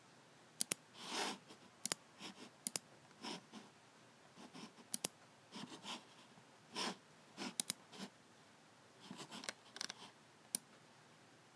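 Logicool G7 computer mouse buttons clicking at an irregular pace, single and double clicks, with short scuffing sounds in between.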